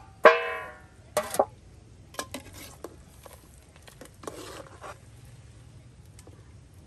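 Metal skimmer knocking against a metal cooking pot and basin while parboiled chicken pieces are lifted out of the boiling water: one loud ringing clang just after the start, then lighter clinks, knocks and a brief scrape.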